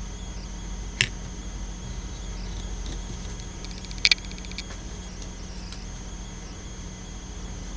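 Oracle cards being handled: a sharp click about a second in and a quick double click about four seconds in. Under them runs a steady low electrical hum with a faint high whine.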